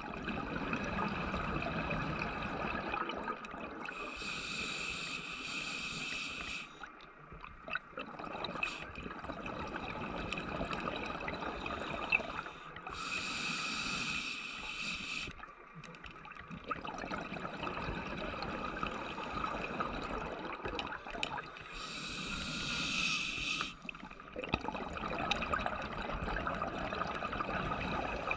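Scuba diver breathing underwater, picked up by the camera: three long hissing inhalations through the breathing gear about eight or nine seconds apart, each followed by bubbling and gurgling water as the breath is let out.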